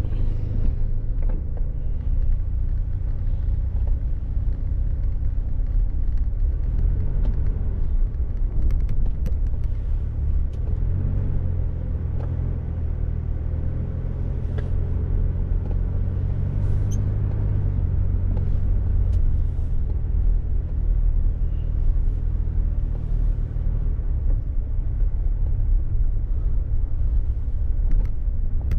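Steady low rumble of a car driving, with occasional faint ticks.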